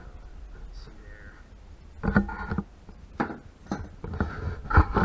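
Metal tools clicking and clanking against metal in short irregular clusters, some knocks ringing briefly, starting about two seconds in and growing busier toward the end.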